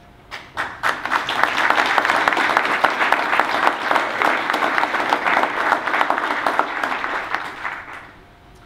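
Audience applauding: a few first claps, then dense, steady clapping that dies away near the end.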